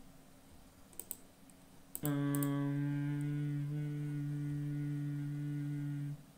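A few computer mouse clicks, then a steady low-pitched hum held on one note for about four seconds, which stops suddenly.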